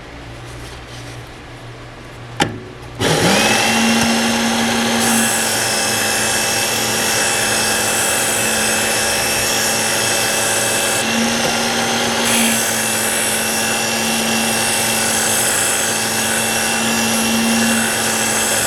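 Work Sharp Ken Onion Edition belt sharpener switched on with a click, its motor winding up to a steady whine and running, with the rasp of a knife blade being ground on the X4 abrasive belt.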